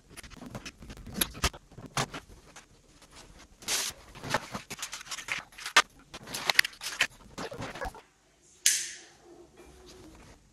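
Hands handling and plugging in lamp cables and their connectors: a busy run of small clicks, taps and rustles. Near the end it goes quiet except for one short rushing noise.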